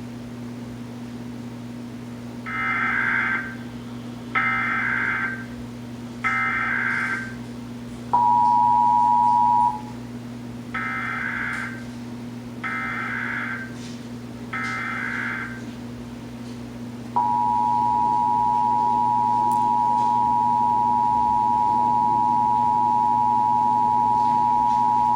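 Emergency Alert System test tones. Three short buzzy bursts of EAS header data play, followed by the two-tone attention signal, which cuts off after about a second and a half. Then three more, slightly quieter header bursts play, and the steady two-tone attention signal holds from about 17 seconds in, with a low hum underneath.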